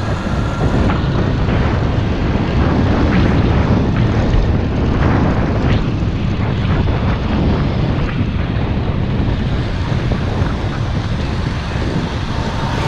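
Steady wind rush on a GoPro 5's microphone while moving, over a low, even vehicle rumble.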